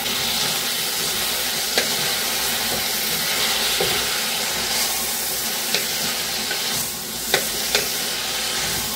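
Chopped jackfruit sizzling in hot oil with fried onions in a pressure cooker as it is stirred with a wooden spatula, the spatula knocking sharply against the metal pot a few times.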